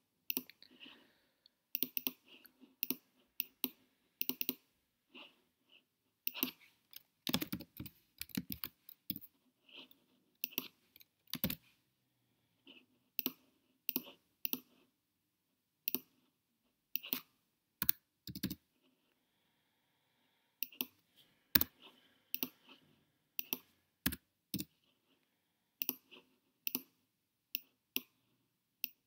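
Computer mouse clicks and keystrokes on a keyboard: short, sharp clicks at an uneven pace, some coming in quick runs.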